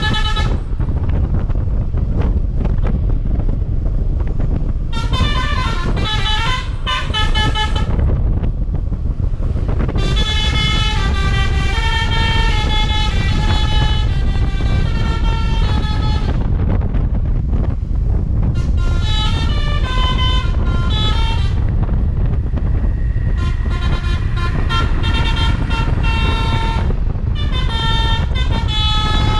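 Basuri V3 telolet bus horn playing several different multi-note tunes, each a quick run of bright tones stepping up and down. It sounds in four main bursts with pauses between them, over the steady low rumble of the bus.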